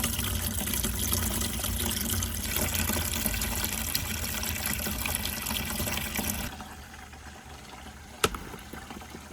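Water running steadily through a water marble run. About six and a half seconds in the flow turns quieter, and a single sharp click comes near the end.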